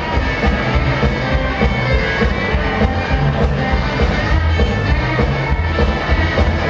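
Rockabilly band playing live, with upright bass, electric guitar and drums driving a steady, fast beat.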